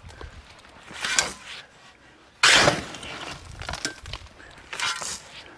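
Gravel raked out of the back of a small trailer, pouring and sliding onto the ground in three surges: a smaller one about a second in, the loudest about two and a half seconds in, and another near the end.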